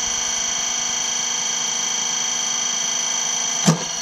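A steady high-pitched electrical or mechanical whine, with one sharp knock about three and a half seconds in.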